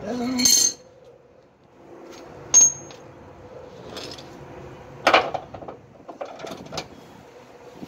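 Wrench and metal shock-mount hardware clinking while a rear shock absorber's mounting bolts are worked loose. A ringing metallic clink comes at the very start, a sharp high ping about two and a half seconds in, and a louder knock about five seconds in, with lighter clicks between.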